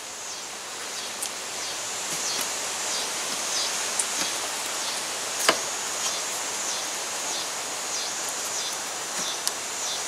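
Steady outdoor ambient noise with a high, evenly pulsing insect chirring running through it, and a few small clicks and taps from handling the air-conditioner parts.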